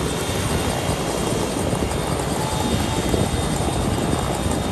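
Small Robinson piston helicopter running on the ground with its rotor turning: a loud, steady drone.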